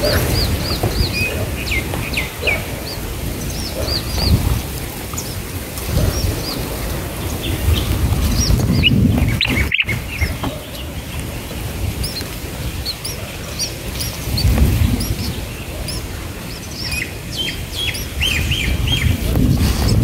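Small birds chirping in short, high notes, scattered through and bunched most thickly near the start and the end, over a low, uneven rumble. The sound drops out briefly about halfway.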